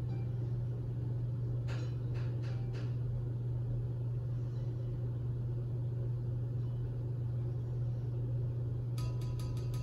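A steady low hum, with a few faint clicks about two seconds in and a quick run of light ticks starting near the end.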